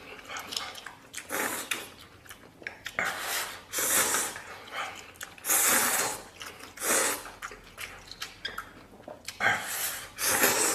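A person slurping instant noodles in big mouthfuls: about six separate slurps, one every second or two, each a hissing rush of air.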